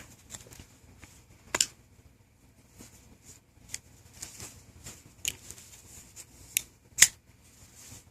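Folding multi-tools being handled: scattered sharp clicks and snaps as blades and tools are opened, locked and folded, the loudest a little before the end.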